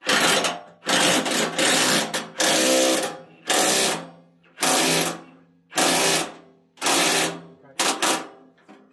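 A handheld power tool, such as a drill-driver, run in about nine short trigger bursts roughly a second apart, each winding down at its end, as bolts are driven home on a tractor roll bar.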